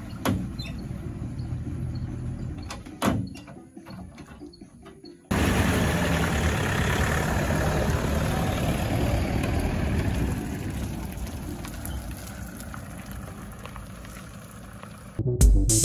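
A few knocks in a quieter stretch, then from about five seconds in a pickup truck's engine idling steadily with a low rumble.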